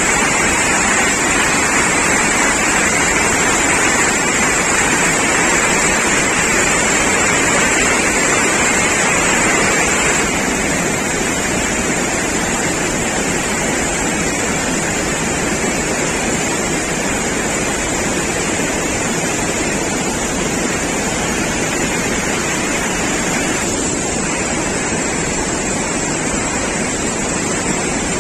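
Floodwater rushing through an open dam spillway gate and down the spillway: a loud, steady rush of water, a little quieter from about ten seconds in.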